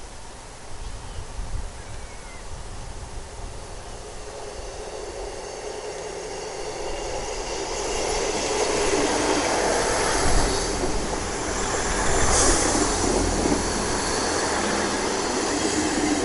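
Class 159 diesel multiple unit with underfloor Cummins diesel engines approaching and passing close by. The engines and the wheels on the rails grow steadily louder from about halfway in and stay loud to the end, with a brief brighter hiss about three quarters of the way through.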